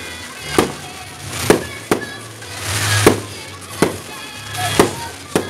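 Aerial fireworks bursting overhead: about seven sharp bangs at uneven intervals, roughly one a second. Music plays underneath.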